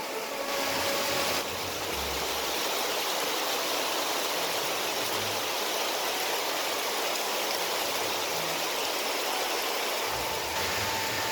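Steady rush of running water, like a stream or small waterfall, with no break.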